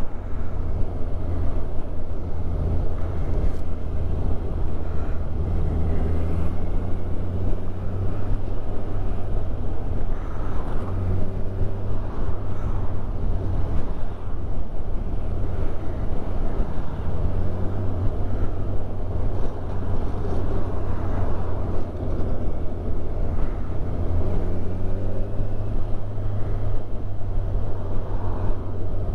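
Kawasaki Ninja 1000SX's inline-four engine running steadily while cruising at around 30 mph, with wind rushing over the helmet camera's microphone.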